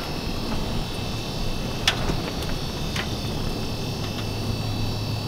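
Steady hiss with a low rumble, broken by two sharp clicks about two and three seconds in; a low hum comes in near the end.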